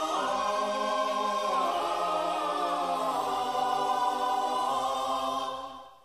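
Choral music: a choir holding sustained chords that shift every second or two, fading out near the end.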